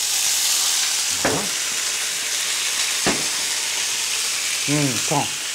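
Scallops searing in a hot pan with a steady sizzle as saké is poured in to deglaze.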